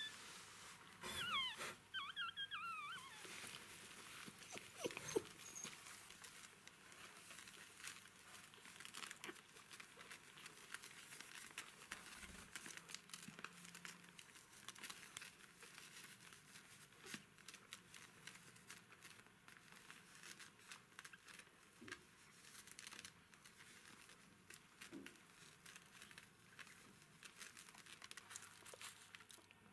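Newborn Jack Russell Terrier puppies giving a few faint high-pitched squeaks about a second in, followed by soft crinkling and clicking.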